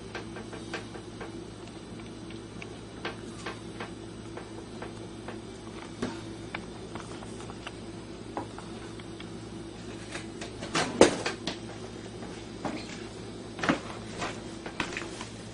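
Scattered knocks and taps as a small dog tugs a baguette wedged crosswise in a narrow gap of a wooden kitchen shelf, the bread bumping against the wood; a louder cluster of knocks comes about two-thirds of the way through, and another sharp knock shortly after. A low steady hum runs underneath.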